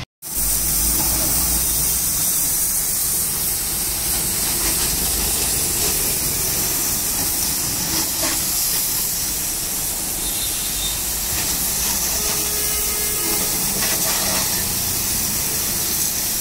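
Steady hiss of a high-pressure washer jet spraying water onto a motorcycle's wheels and bodywork to wash off caked mud.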